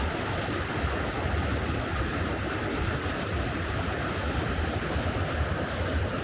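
Steady rushing of a fast-flowing mountain river, with a low rumble of wind on the microphone.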